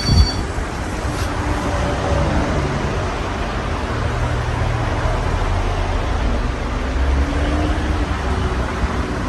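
Casablanca Halogen Star ceiling fan with four blades running, a steady rush of moving air over a low motor rumble. A short thump comes just after the start.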